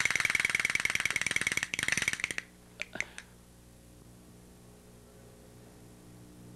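A fast, dense rattling clatter that stops abruptly after about two and a half seconds, followed by a couple of brief clicks. After that only a faint, steady low hum remains.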